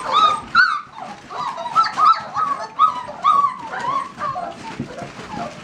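Several Borzoi puppies yipping and whimpering over one another in short, high, overlapping calls.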